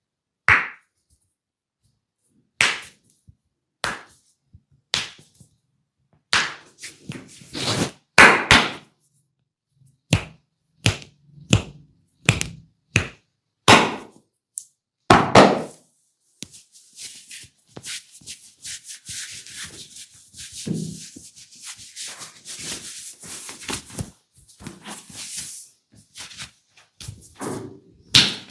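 Bare hands striking a head during a barber's head massage: single sharp slaps and thumps, irregularly spaced about a second apart, for the first half. From about the middle on, fingers scratch and rub through the hair in a continuous hissy scratching.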